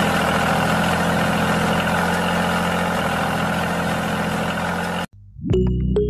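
Small electric gear motor of a homemade toy tractor running steadily as it pulls a tined cultivator through sand. It cuts off abruptly about five seconds in, and electronic music starts just after.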